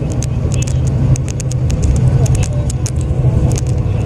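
Hino Selega coach's inline-six diesel engine idling with a steady low hum while the bus stands at the stop. Scattered sharp clicks and ticks sound over it.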